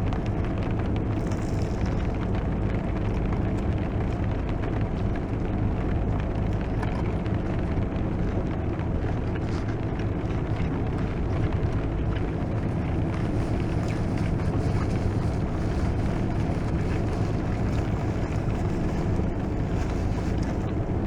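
Heavy rain pouring on a car's roof and windshield, a steady, dense patter heard from inside the cabin.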